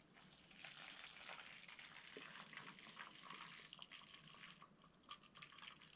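Water poured from a gooseneck kettle into a plastic cup of instant cappuccino powder: a faint, steady, fizzing trickle.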